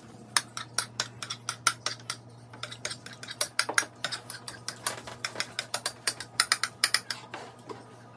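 Metal spoon and ladle clinking and scraping against a glass baking dish and a steel saucepan, several sharp taps a second, as macaroni and cheese sauce are spread and stirred. A steady low hum runs underneath.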